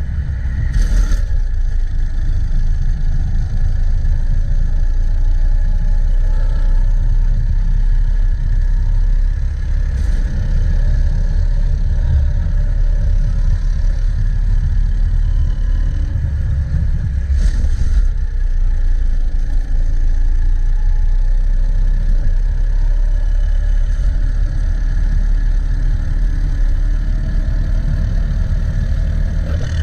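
80cc racing kart engine running hard, its pitch wavering up and down, over a heavy low rumble. A few brief knocks cut through about a second in, around ten seconds in and near eighteen seconds.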